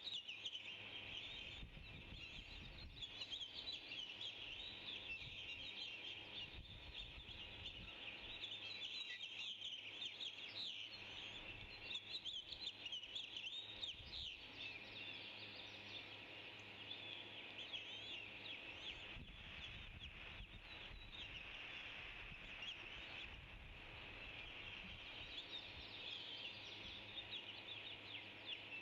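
Birds chirping: many short, high calls overlapping over a steady high background hiss, busiest in the first half.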